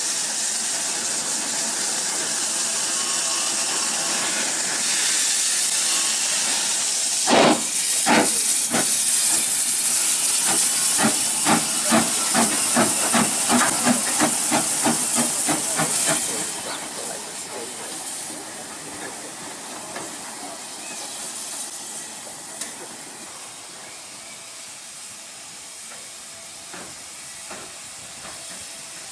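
Austerity 0-6-0 saddle tank steam locomotive hissing steam, then a sharp thump about seven seconds in, followed by a run of exhaust chuffs, about two or three a second, as it moves off. The chuffs stop about halfway through and a fainter hiss remains as the engine draws away.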